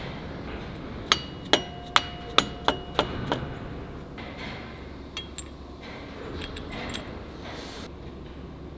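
Seven quick hammer strikes on steel, a little under half a second apart, each leaving a metallic ring, with the last ones weaker. A few faint clinks follow.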